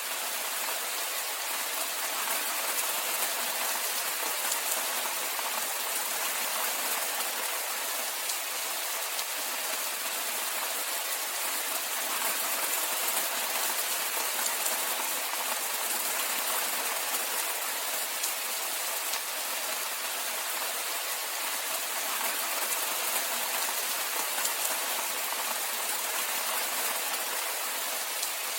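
Steady rainfall: a dense, even hiss of falling drops with fine patter, unchanging throughout.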